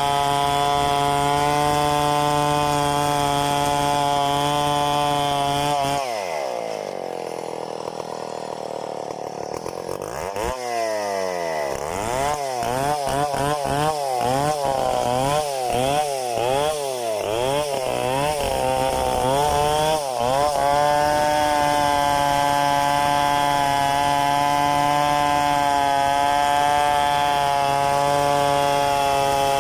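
Two-stroke Stihl chainsaw running at high speed, cutting gmelina wood. About six seconds in its pitch falls away to idle. After a few seconds it is blipped up and down in quick revs for about ten seconds, then held at full speed again to the end.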